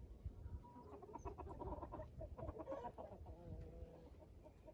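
Chickens clucking quietly, a run of short, broken calls.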